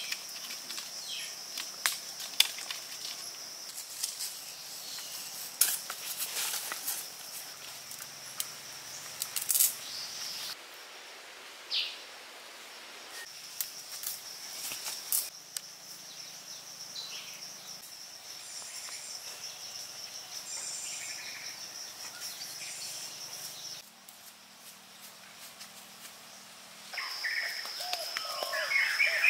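Forest ambience with a steady high-pitched insect drone, broken by scattered clicks and knocks from handling the bamboo sticks and a few faint bird chirps. The background changes abruptly several times.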